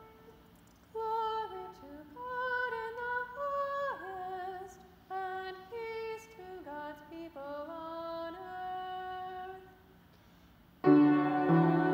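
A solo voice sings an unaccompanied, flowing melody, one note at a time with slides between notes. About eleven seconds in, an accompanying instrument enters with loud full chords.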